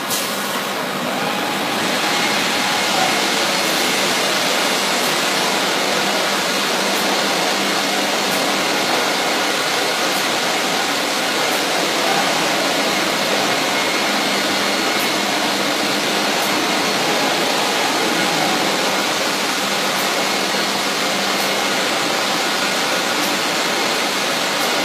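Biesse Rover B CNC router running: a steady rushing noise that grows louder about two seconds in as the machine works across the table. Faint ticks come about every second and a half.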